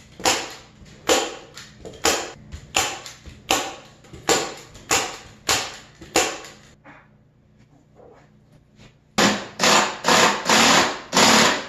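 Hammer blows on the wooden frame: about nine evenly spaced strikes, then a short pause, then a faster, louder run of strikes near the end.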